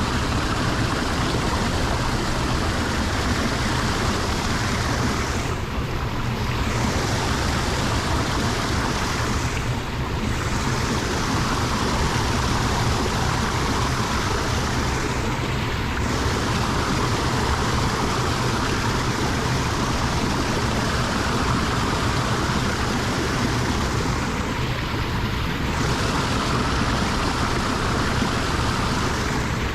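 Water rushing steadily into a lake drain, a continuous loud rushing noise whose hiss thins briefly a few times.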